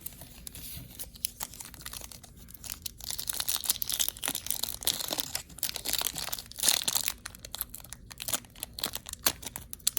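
Crinkling and tearing of a Panini Prizm Draft Picks trading-card pack wrapper being opened and handled: many small crackles, busier and louder from about three seconds in.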